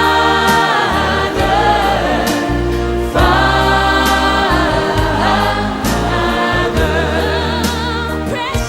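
Gospel worship song: a choir singing with vibrato over sustained bass and instrumental backing.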